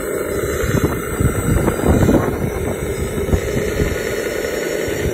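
Radio-controlled construction vehicle running steadily with a motor drone and low crackle, with wind on the microphone.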